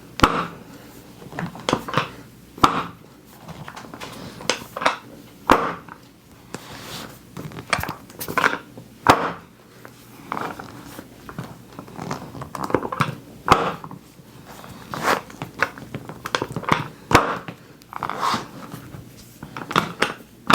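Chiropractic drop table firing under the adjustment of the lower leg's fibula: its drop section snaps down with about twenty loud, sharp clacks at irregular intervals. Softer clicks and rustling from handling come between them.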